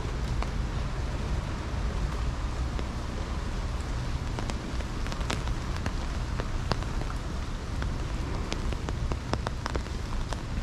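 Steady rain, with sharp individual raindrops ticking close by, more and more of them in the second half, over a low rumble.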